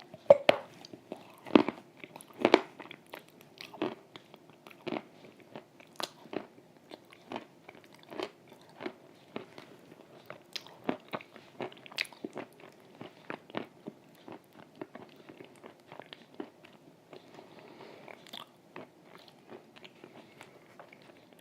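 Close-miked biting and chewing of a piece of Volokonovka chalk soaked in wet clay paste: sharp crunches, loudest in the first few seconds, then a steady run of softer chewing clicks.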